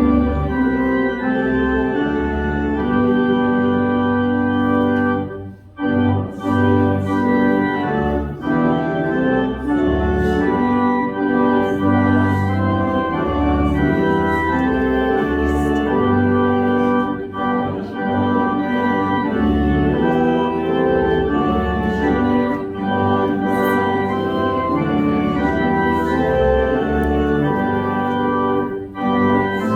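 Organ playing a hymn: sustained chords moving in steady phrases, with a short break between phrases about five and a half seconds in and again near the end.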